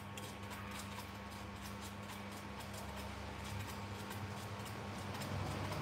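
Baby macaque chewing and gnawing on a green stalk: soft wet clicks about four times a second over a steady low hum.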